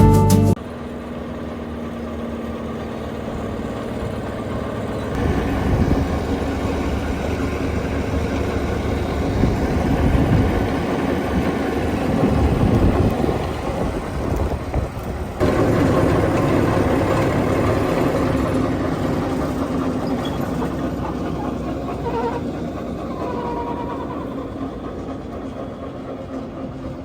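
Vermeer BC1000XL wood chipper running on its diesel engine, a steady dense mechanical noise. The sound changes abruptly about five and about fifteen seconds in.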